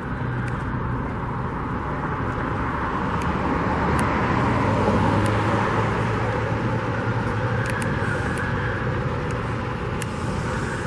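Road traffic, with a vehicle passing by: a steady rumble that grows louder to a peak about five seconds in, then eases off.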